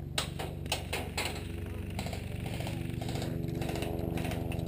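A steady motor-like hum, with scattered sharp clicks and knocks over it. The loudest knocks come in the first second and a half, and lighter ones follow near the end.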